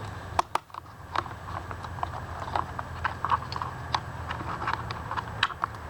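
Irregular small clicks and taps of hard plastic and metal parts being handled, about two or three a second, over a steady low hum.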